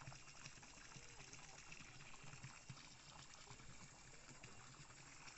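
Near silence: faint outdoor ambience with a soft trickle of water.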